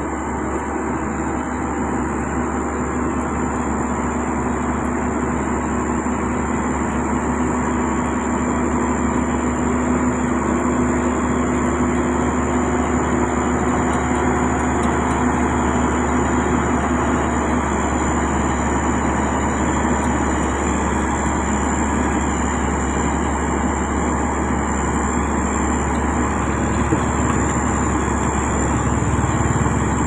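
Diesel engine of a Sany motor grader running steadily as it works, spreading gravel, with a steady high-pitched whine above it.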